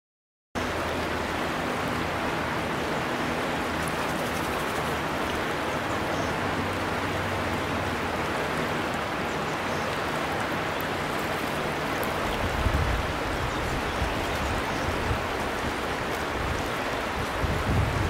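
Shallow water running over a pebble shore: a steady, even rushing hiss that starts abruptly about half a second in. From about twelve seconds on, low rumbling pulses come and go beneath it.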